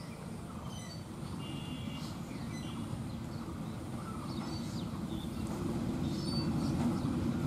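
Diesel locomotive approaching at low speed, its engine drone steadily growing louder as it nears, with birds chirping over it.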